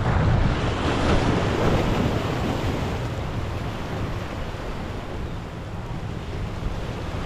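Small waves washing and breaking against the boulders of a rock jetty, with wind buffeting the microphone; the surf is loudest in the first couple of seconds, then eases.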